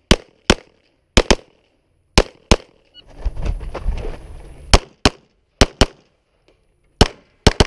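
Glock 34 9mm pistol firing about thirteen shots, mostly in quick pairs, with a pause for a move midway. One pair about a second in comes much faster than the others. The owner says this pistol sometimes double-fires on its stock frame internals.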